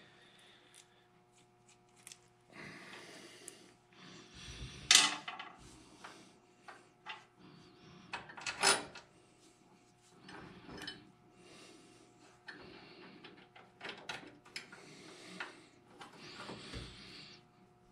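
Hand work on a Cub Cadet 154 Lo-Boy garden tractor's clutch and drive parts: scattered light metal clicks and clinks with rustling as nuts are started by hand on their bolts, with a couple of sharper knocks about five and nine seconds in.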